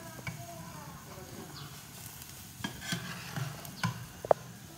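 Dumplings boiling in a pan of water while a metal ladle stirs them, scraping and tapping against the pan now and then. A sharp metallic clink near the end is the loudest sound.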